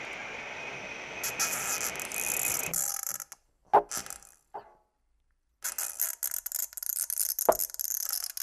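Experimental electronic glitch music: grainy, crackling noise textures with sharp clicks and abrupt cut-outs. It drops to silence for nearly a second past the middle, then resumes as a dense, high crackle.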